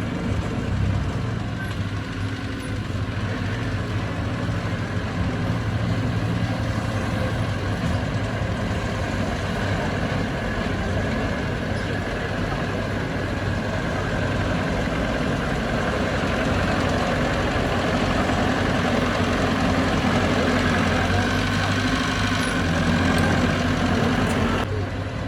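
Heavy diesel engine of construction machinery running steadily, its low engine note swelling a little in the middle, with an abrupt change shortly before the end.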